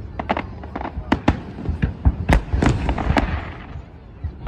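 Aerial fireworks exploding: a rapid, irregular string of sharp bangs, with a crackling hiss after the loudest bursts in the middle.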